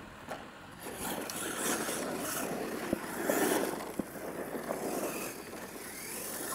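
Radio-controlled monster truck driving hard across loose dirt, its tyres spinning and spraying dirt as a rough, noisy rush that starts about a second in.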